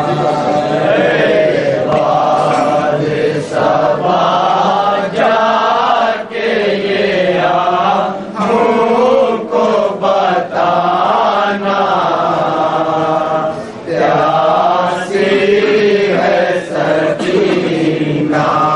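Men's voices chanting a nauha, an Urdu Muharram lament, in a slow, wavering melody with long held lines and short pauses for breath.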